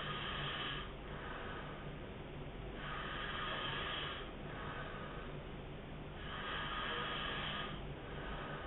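A man snoring hard in his sleep: three loud, noisy snoring breaths come about every three and a half seconds, each lasting about a second and a half, with quieter breathing between them.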